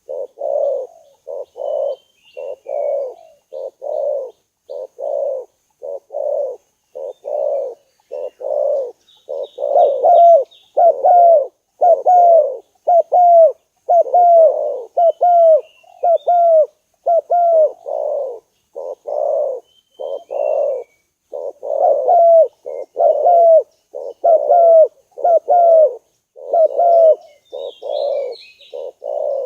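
Spotted doves cooing: a continuous series of short, low coos, about two a second, some louder with a rising-then-falling inflection.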